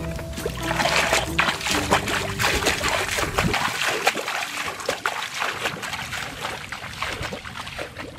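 Footsteps wading through shallow muddy water, splashing and sloshing with each stride. Background music runs under the first three seconds or so and stops, and the splashing fades out near the end.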